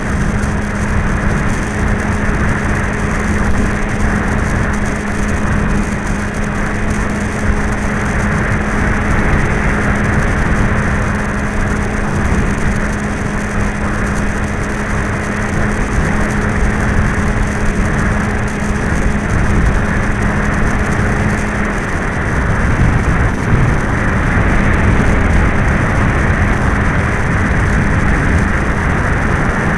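Wind rushing hard over the microphone of the onboard camera of an FMS 1280 electric RC trainer plane in flight. Under it is the steady hum of the plane's motor and propeller, which stops about twenty-two seconds in, leaving only the wind.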